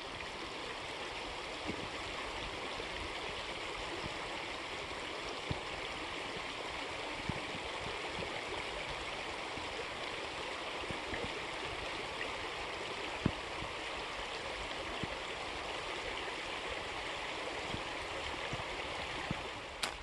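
Mountain creek running: a steady rush of flowing water.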